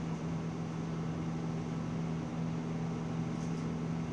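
Steady low hum with an even hiss behind it: the room's background noise during a pause in speech, with a couple of faint ticks near the end.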